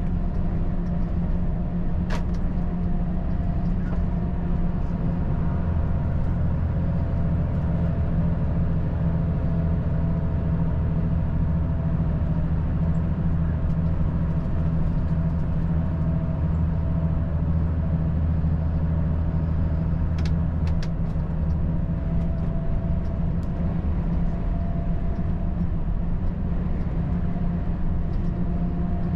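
Volvo FH 540 truck's six-cylinder diesel engine and road noise, a steady low drone while cruising at constant speed. A faint click a couple of seconds in and a few more about two-thirds through.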